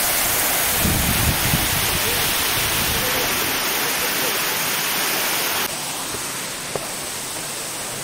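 Waterfall plunging into a rocky pool: a loud, steady rushing of falling water. It becomes quieter and duller about six seconds in.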